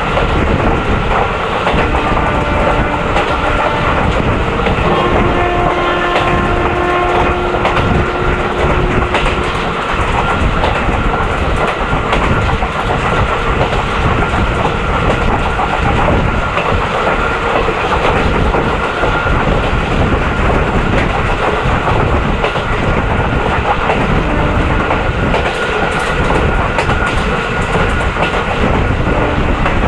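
Indian Railways WCAM1 dual-voltage electric locomotive running at speed, heard from the coach right behind it: a steady high whine from its traction motors over the rumble and clickety-clack of the wheels. A horn sounds for a few seconds about five seconds in.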